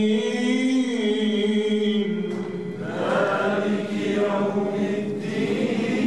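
A man's solo Quran recitation (tajwid) into a microphone, sung in maqam Sikah: long drawn-out notes that bend slowly up and down in pitch, with a new phrase beginning about three seconds in.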